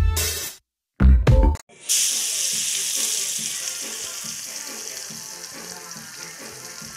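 Chopped garlic sizzling in hot leftover fish-frying oil with soy sauce in a pan. The sizzle starts suddenly about two seconds in, loud at first, then slowly dies down. Before it comes a short burst of electronic intro music, which cuts off.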